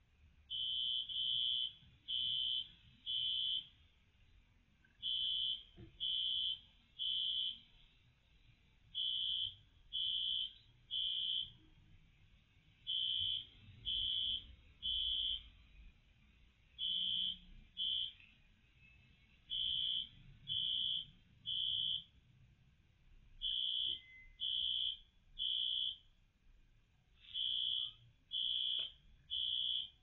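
Fire alarm sounding the temporal-three evacuation pattern: three high beeps about a second apart, then a pause, repeating every four seconds. It is a false alarm, set off when the sprinkler flow switch tripped as water rushed back into a drained sprinkler line.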